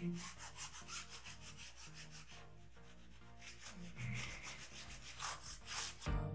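Damp cloth rubbing back and forth over the plastic casing and keyboard of an HP 246 G6 laptop, a run of quick scraping wiping strokes.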